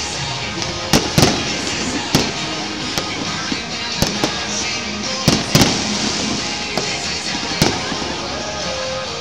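Aerial fireworks shells bursting over a stadium, a string of sharp bangs at uneven intervals, with music playing steadily underneath.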